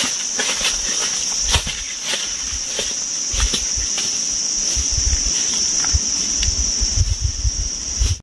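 A steady, high-pitched drone of insects, with irregular crunches and rustles of dry leaf litter underfoot.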